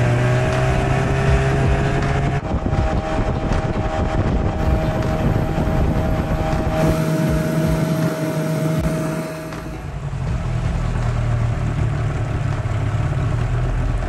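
Jon boat's outboard motor running steadily under way, its pitch climbing slightly in the first couple of seconds.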